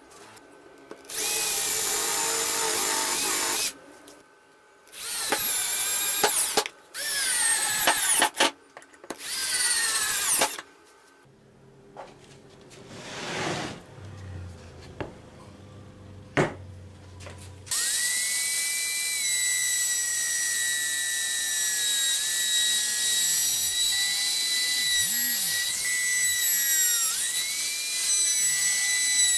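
Several short bursts from a handheld power tool, each dropping in pitch as it spins down. About eighteen seconds in, a corded trim router starts and then runs steadily with a high whine.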